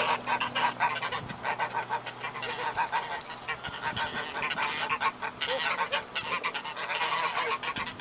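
A flock of white domestic geese honking, with many short calls overlapping one another.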